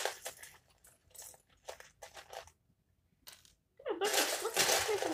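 Loose plastic Lego pieces clattering as a hand rummages through a pile of bricks: scattered clicks at first, a short pause, then a louder stretch of dense rattling near the end.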